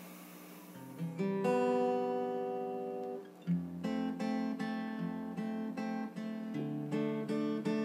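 Acoustic guitar playing a solo intro: a few notes rolled in one after another into a chord that rings for about two seconds, then, from about three and a half seconds in, a steady picked pattern of repeated notes and chords.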